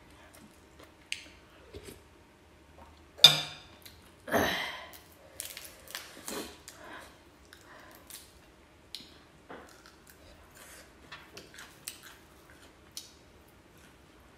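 Close-up eating sounds: fingers picking and pressing food on a plate, with scattered small clicks and soft handling noises. A sharp clink of a utensil against a dish comes about three seconds in, followed at once by a longer scraping rustle.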